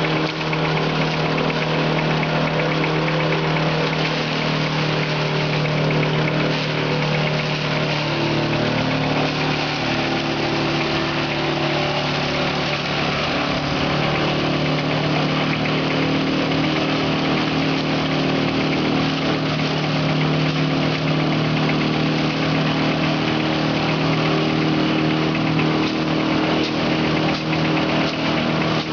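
Engine-driven multipurpose crop shredder running steadily while green forage is fed in and chopped: a constant engine hum under a dense whirring hiss from the shredder.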